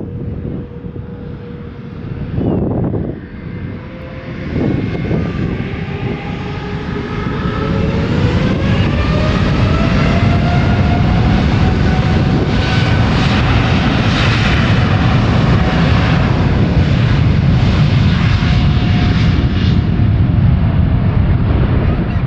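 Boeing 787-9 jet engines building to takeoff thrust: a whine rises in pitch over several seconds and the roar swells, then holds steady and loud. Wind buffets the microphone in the first few seconds.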